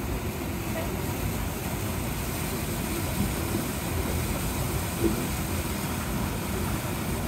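Water rushing through an artificial standing surf wave: a deep, steady rush of churning whitewater as a surfer rides it.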